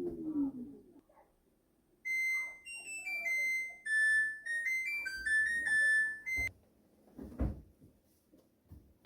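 An LG WashTower's electronic beeper playing its short melody of clear high notes, as the appliance signals a start or the end of a cycle. A dull thump follows shortly after the tune ends.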